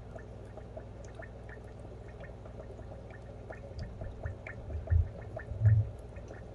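Aquarium water trickling and dripping, with many small scattered drops over a steady low hum. There are a few low thumps in the second half.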